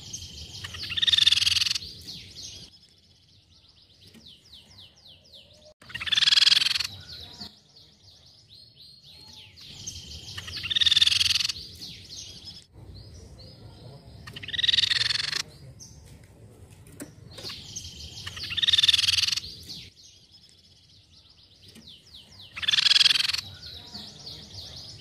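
Crescent-chested babbler (tepus pipi perak) calling: six loud, high bursts of about a second each, one roughly every four seconds, with a fast, high trill of rapid notes running between them.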